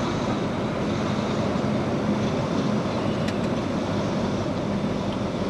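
Volvo semi truck's diesel engine running as the truck rolls slowly, a steady low hum with road and cab noise, heard from inside the cab. A faint click about three seconds in.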